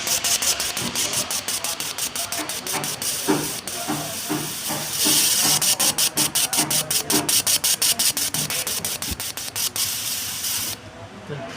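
A loud hiss, like a jet of spray or air, over an even rapid ticking of about five or six clicks a second; the hiss swells midway and cuts off suddenly near the end.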